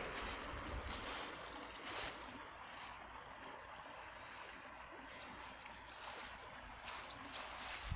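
Footsteps rustling through dry marsh grass, soft and irregular, over a faint steady hiss of outdoor noise.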